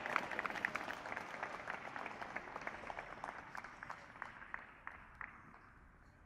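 Crowd applauding, a dense patter of clapping that thins out and fades steadily away.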